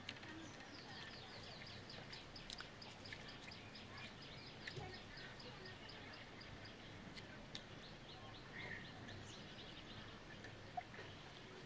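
A bird calling: a long run of quick, high chirps, each note falling in pitch, about four or five a second, breaking off about two-thirds of the way through and then starting again.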